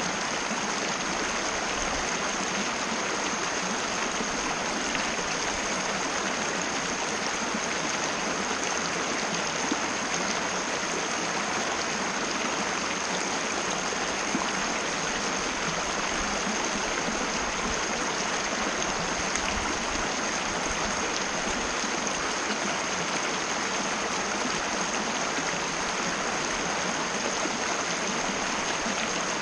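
Mountain river rushing steadily over rocks, an even flow of water with no let-up, with a faint steady high-pitched tone running under it.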